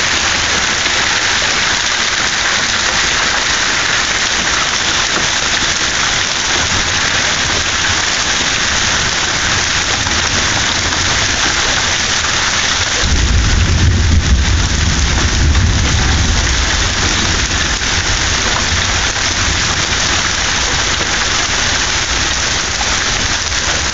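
Heavy rain pouring down steadily during a thunderstorm. About thirteen seconds in, a low rumble of thunder rolls for a few seconds and slowly fades.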